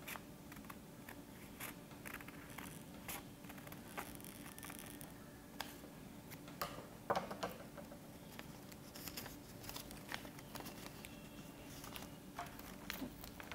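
Faint snips of scissors cutting through printer paper along a curved line, with paper rustling as the cut sheet is handled.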